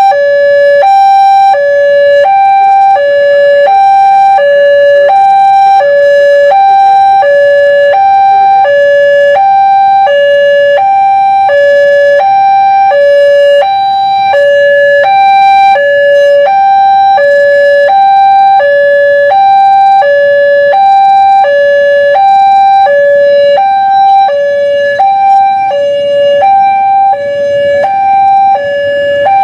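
Railway level-crossing warning alarm sounding while the crossing is closed: a loud electronic two-tone signal alternating between a higher and a lower note, about one high-low cycle a second, repeating without a break.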